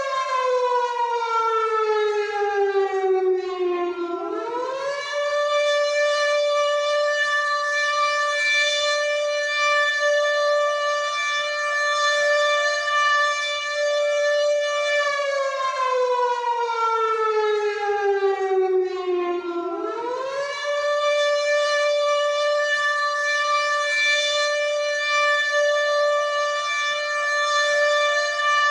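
WW2-style air raid siren wailing. It holds one steady pitch, then slowly falls over about four seconds and quickly rises back to the held note. This happens twice, a little after the start and again about halfway through.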